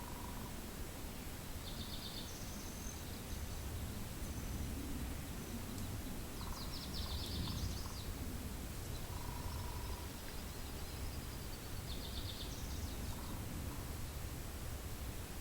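Steady low wind rumble with birds calling in the distance: three short bursts of quick high notes spread through, plus a few single notes and a faint thin falling whistle.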